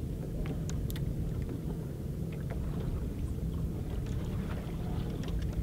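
Steady low hum of a bass boat's motor while it sits on open lake water, with light water lapping and faint ticks over it.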